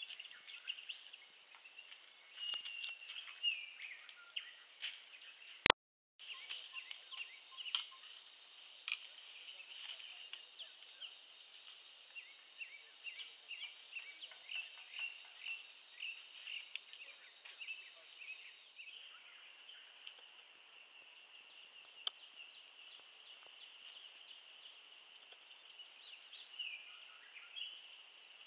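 Forest ambience of many small, high chirps and calls from birds and insects. A steady high buzz joins in for the middle part. There is a single sharp click about six seconds in, the loudest sound.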